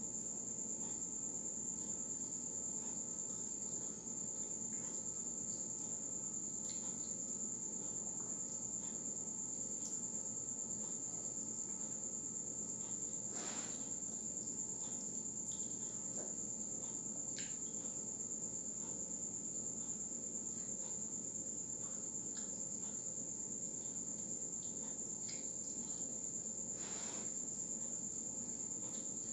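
Crickets trilling, one steady high-pitched tone, with a few short crunches of a crispy fried banana spring roll being bitten and chewed.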